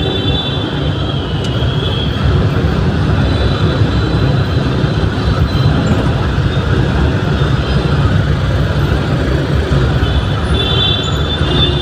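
Steady low rumble of congested road traffic, with a thin high steady tone that fades out in the first two seconds and returns near the end.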